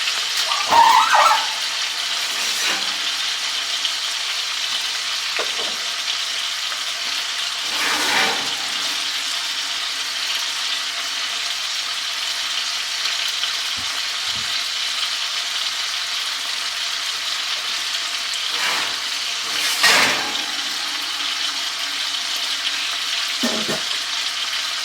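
Chicken breasts sizzling steadily in olive oil in a hot skillet as they brown. A few short clatters of cookware come through, about a second in, near the middle and again later.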